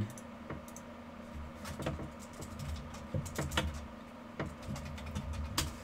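Computer keyboard typing: faint, irregular key clicks while a chart title is retyped.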